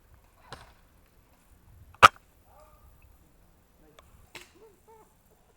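Silverback SRS A1 airsoft sniper rifle firing once about two seconds in, a single sharp crack. Fainter clicks and rustling handling sounds come before and after it.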